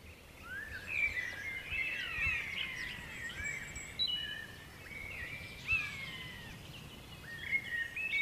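Several songbirds singing at once in woodland, overlapping whistled and warbled phrases, fading in over the first second.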